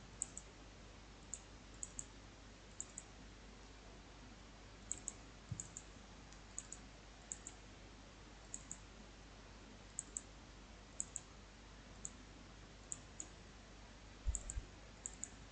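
Computer mouse clicking, mostly in quick double-clicks about once a second, over a faint steady hiss, with a soft low knock near the end.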